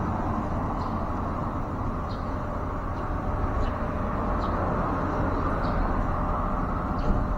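Steady outdoor background rumble, with faint short high bird chirps about once a second.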